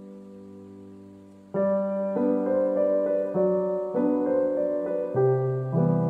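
Background piano music: a held chord fades out, then a louder, gentle melody of single notes and chords begins about a second and a half in.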